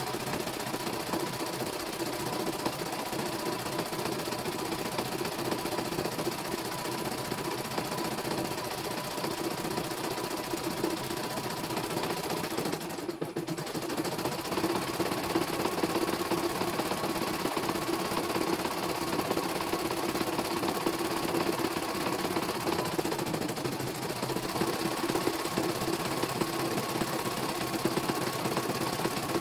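CNY computerized embroidery machine stitching steadily, its needle running fast while the hoop carriage moves the fabric. The stitching stops briefly about halfway through, then carries on.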